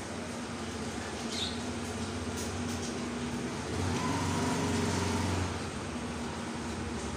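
Steady hum of road traffic, with one vehicle's engine louder for about a second and a half midway.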